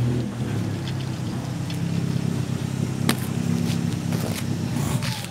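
G.M.D toy train locomotive's small electric motor and gears running with a steady low whir, with a sharp click about three seconds in. It cuts off suddenly at the end.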